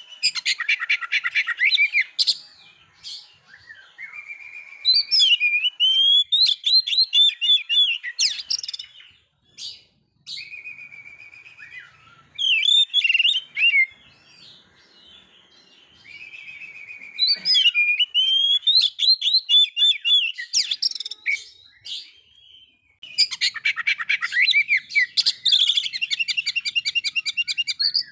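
Male Oriental magpie-robin singing loudly in about five bursts of rapid, varied, whistled and chattering phrases, separated by short pauses.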